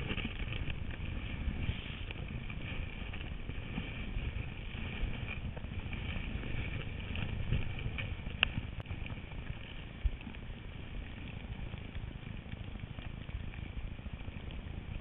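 Wind rushing over a body-worn camera's microphone and skis hissing through snow on a downhill run: a steady noisy rumble, with a couple of sharp clicks about eight and ten seconds in.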